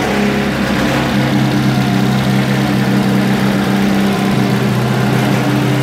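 Mildly race-tuned Citroën 3CV air-cooled flat-twin engine idling steadily on a test stand.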